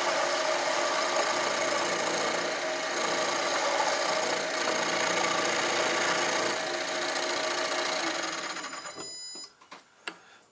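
Small metalworking lathe running while a ball turning tool cuts a rounded end on a connecting rod, a steady machine whine with several fixed tones. The lathe winds down and stops about nine seconds in, followed by a few light metal clicks.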